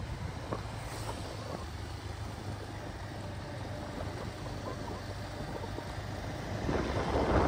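Motorcycle engine running steadily while riding, with wind rushing over the microphone; the wind noise swells louder near the end.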